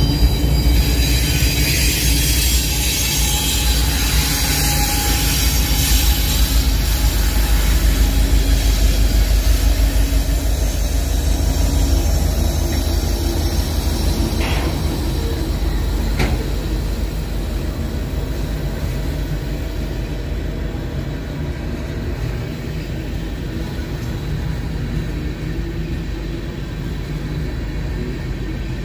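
Several diesel-electric freight locomotives, among them an EMD SD70ACU, passing close by under power: a deep, steady engine drone over steel wheels rolling on the rails. Two short sharp sounds come about halfway through, and the sound eases off as the first loaded ethanol tank cars roll past near the end.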